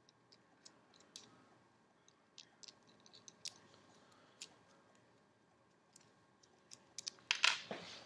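Faint, scattered small clicks of a metal precision screwdriver being handled and its bit fitted into the handle, with a louder brief rustle near the end.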